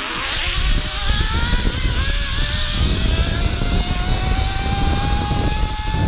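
Zip line trolley pulleys running along the steel cable: a whine that climbs steadily in pitch as the rider picks up speed, over heavy wind rumble on the microphone.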